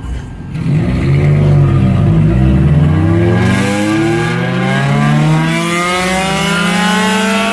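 Car engine revving hard: a few quick blips of the throttle, then a long steady climb in pitch as it is held at high revs.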